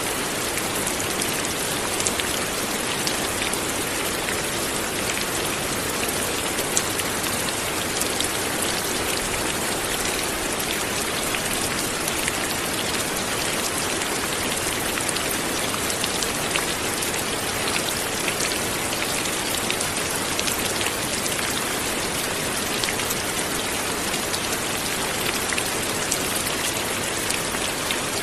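Steady light rain falling, a continuous hiss with many small drop ticks spread through it.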